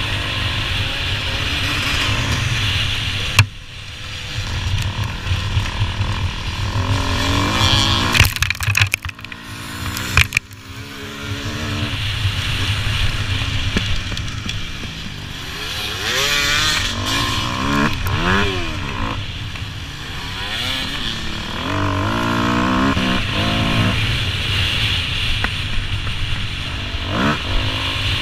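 Enduro dirt-bike engine revving up and down again and again as the bike is ridden off-road, with a sharp knock about three seconds in.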